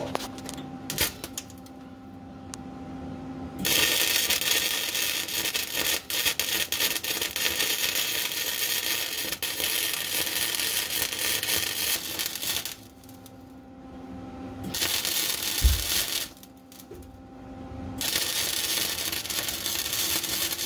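Welder laying beads on a car's subframe connector and frame rail: a long run of steady crackling sizzle of about nine seconds, a short burst about two-thirds of the way in, and another run starting near the end, with a low hum in the pauses.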